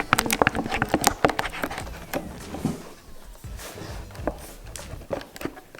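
Glue and colouring being stirred in a bowl: a utensil clicking and scraping against the bowl, quick and busy for about two seconds, then only the odd click.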